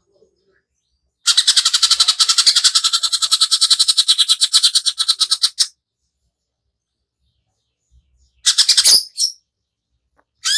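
Cucak ijo (leafbird) giving a long, fast, harsh rattling trill of about four seconds, the rough 'tembakan kasar' burst used to provoke other birds, then after a pause a short downward-sliding call, with another call starting at the end.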